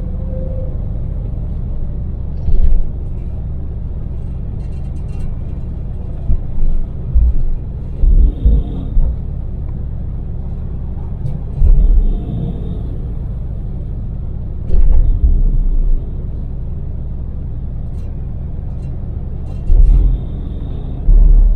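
Daewoo Damas LPG minivan's small three-cylinder engine and road noise, a steady low drone while cruising, broken by about seven short, loud low thumps.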